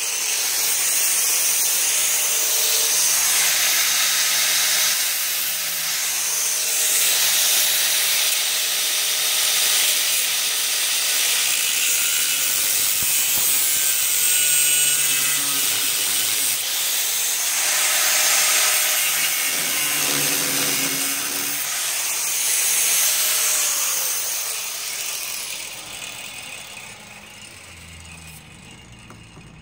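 Small angle grinder with a thin cutting disc slicing through rusted sheet steel at the base of a Land Rover door pillar. It runs loud and steady, its pitch wavering as the disc bites, then is switched off and winds down over the last few seconds.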